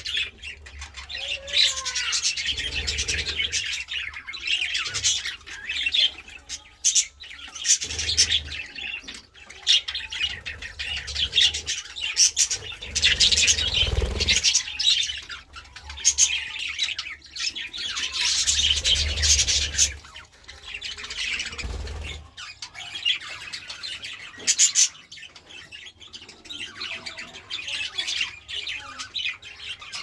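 Budgerigars chattering and warbling without a break, a dense run of quick high-pitched chirps and calls, with occasional low rumbles underneath.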